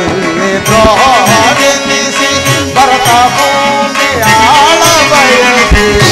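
Live traditional Indian stage-drama music: harmonium and drums playing, with a wavering, gliding melody over sustained tones and a steady beat.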